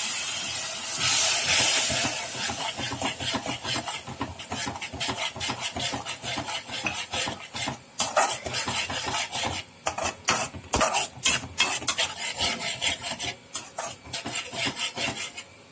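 Tomato puree hitting the hot oil and onion paste in a non-stick kadai, with a loud sizzle in the first couple of seconds. Then a spatula stirs and scrapes the mixture against the pan in quick, repeated rasping strokes, which stop near the end.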